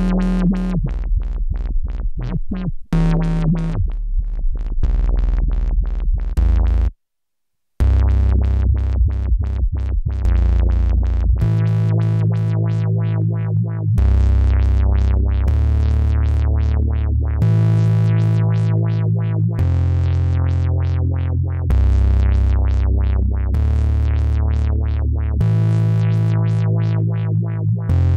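Novation Circuit Tracks groovebox playing a sequenced synth-preset pattern of fast repeated notes. It cuts out for under a second about seven seconds in, then comes back with deep bass notes changing about every two seconds under quick repeated higher notes.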